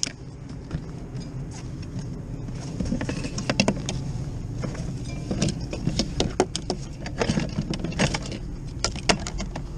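Charging cables and plugs being handled and pulled out of a plastic motorcycle side case: a run of irregular clicks, knocks and rattles, busiest in the second half, over a steady low rumble.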